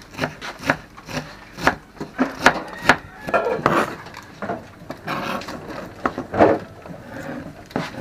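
Large kitchen knife chopping on a plastic cutting board, shredding cabbage in sharp knocks about twice a second. After about three seconds the strokes give way to less regular slicing and scraping as the knife cuts carrot into strips, with a few more knocks on the board.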